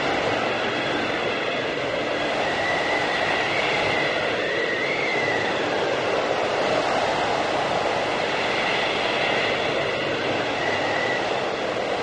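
Blizzard wind blowing steadily in a whiteout, with a high thin whistle that wavers in pitch and comes and goes over the rushing.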